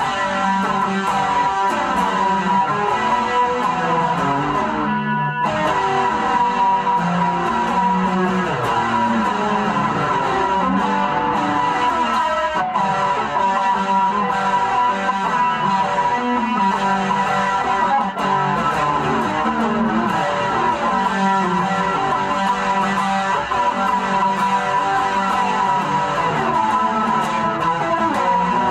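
Guitar being played without a break: a steady stream of picked notes and chords.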